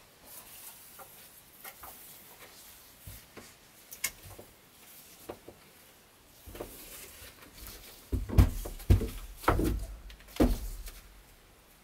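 Light clicks and taps as a mesh screen door is pushed open, then several heavy footsteps thumping on wooden steps over the last few seconds.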